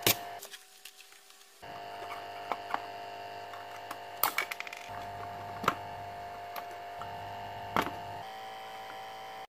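A spring-loaded solder sucker snaps once at the start. Then come scattered light clicks of metal tweezers on components on the circuit board, over a steady hum.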